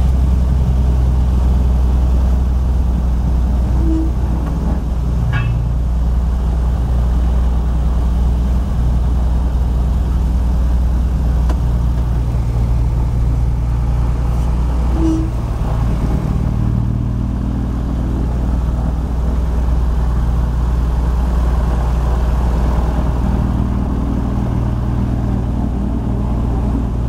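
Piston engine and propeller of a high-wing single-engine light plane running steadily at low taxi power, heard from inside the cabin as a continuous low drone.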